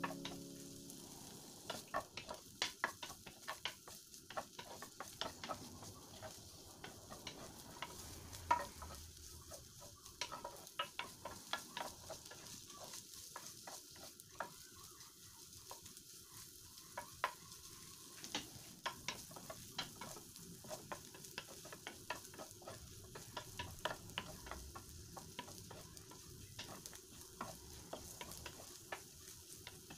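Strips of burger steak frying with a faint sizzle in a nonstick grill pan, in their own rendered fat with no added oil, while a wooden spatula stirs them, making irregular clicks and scrapes against the pan.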